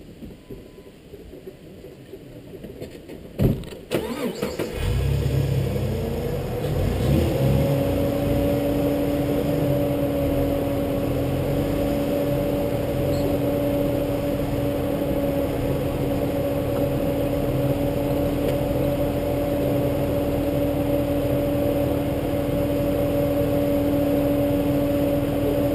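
Jeep TJ Rubicon's inline-six engine starting about five seconds in after a knock, its pitch rising as it catches. It then runs steadily at low engine speed with a constant whine.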